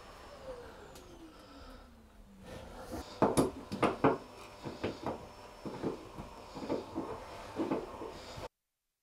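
A hand tool working the fastening of a small thru-hull vent fitting from inside a fibreglass hull: irregular clicks and knocks of metal on plastic and fibreglass, about one or two a second, starting about three seconds in and cutting off suddenly near the end.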